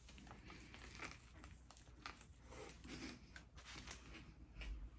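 Faint chewing of a turkey and bacon sub, with scattered small clicks and crackles from the mouth and food.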